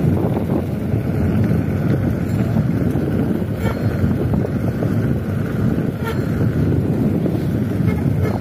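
Wind buffeting the microphone of a camera on a bicycle coasting down a mountain road: a steady, loud, low rush.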